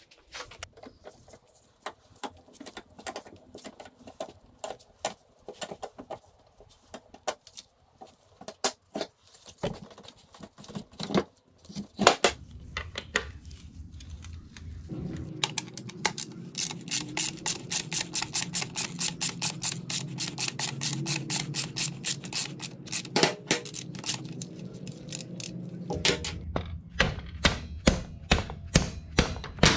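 Socket ratchet wrench clicking in fast, even strokes, about four a second, while backing off a motorcycle's rear axle nut. Before that come irregular metallic clinks and clicks of tools being handled.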